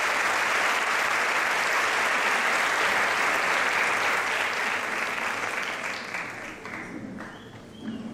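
Audience applauding: dense, steady clapping that thins out and fades away over the last few seconds.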